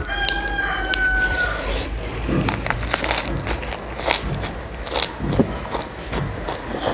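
Close-miked eating: crisp crunches and moist smacks of a lettuce-and-noodle wrap being bitten and chewed, and a noodle strand slurped. A drawn-out pitched call sounds in the background for about the first second and a half, falling slightly at its end.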